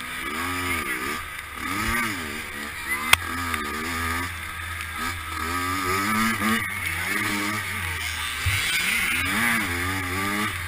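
Dirt bike engine revving up and down over and over as the throttle is worked, its pitch rising and falling about once a second, with a sharp knock about three seconds in.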